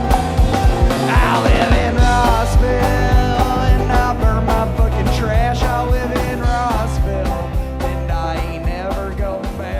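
Rock music with a steady drum beat, bass and a bending lead line, gradually fading out.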